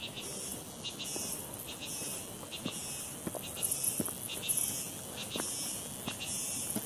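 Chorus of insects singing in high, pulsing waves that swell and fade roughly once a second, over a finer rapid chirring.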